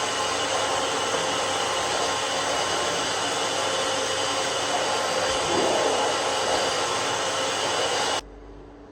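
An electric air appliance's motor running with a steady rush of air and a whine, cutting off abruptly near the end.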